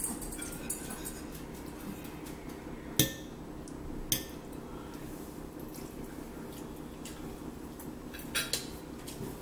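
Forks clinking and scraping against dinner plates while eating, with a sharp clink about three seconds in, another a second later, and a quick double clink near the end.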